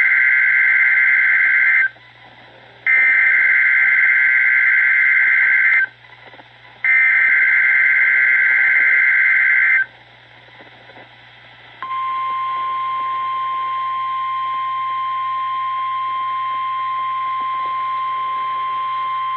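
NOAA Weather Radio weekly test signal: three screeching digital SAME header bursts of about three seconds each, a second apart, the first already under way, followed about twelve seconds in by the steady single-pitch 1050 Hz weather alert tone.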